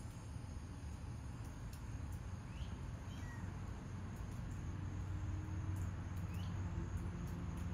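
Steady low background rumble with a few faint, very short high-pitched chirps scattered through it, the first about two and a half seconds in and another near the end.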